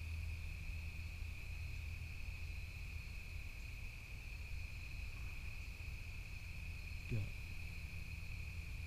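Steady, unbroken chorus of crickets over a low steady rumble. About seven seconds in, a short sound slides quickly down in pitch.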